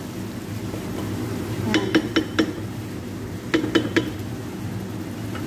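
Utensils clinking against a stone-coated cooking pan as onions and diced tomato are stirred and added: a quick run of four knocks about two seconds in and three more about three and a half seconds in, over a steady low hum.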